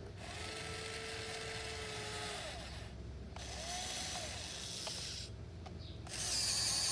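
Electric gear motors of a 1580 RC excavator whining in several short runs, the pitch rising and falling as each motion starts and stops. There are brief pauses about three seconds in and again about five seconds in, and a louder, steady run starts near the end.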